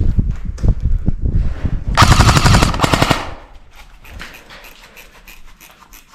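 Airsoft gun firing one full-auto burst of about a second, a fast rattle of shots. Before it comes a run of dull thumps; after it, faint rapid clicks of fire further off.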